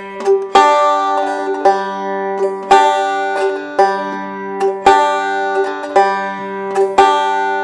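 Five-string banjo picked slowly with fingerpicks on open strings: a thumb pluck on the third string alternating with the middle finger and thumb pinching the first and fifth strings together, the pattern repeating about once a second and the notes ringing on.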